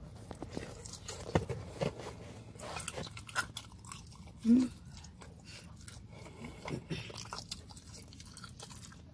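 A person chewing and biting pizza close to the microphone: mouth noises with many scattered small clicks. One short, loud rising sound about halfway through.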